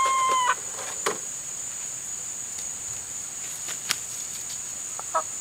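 Backyard chickens with a steady high insect drone behind them: a long, held chicken call cuts off abruptly about half a second in, a few faint knocks follow, and a short chicken call comes near the end.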